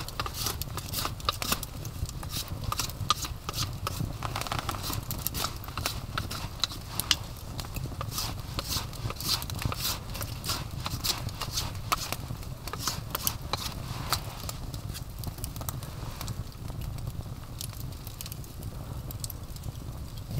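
Wood fire crackling and popping, with many irregular sharp pops that thin out over the last few seconds, over a steady low rumble.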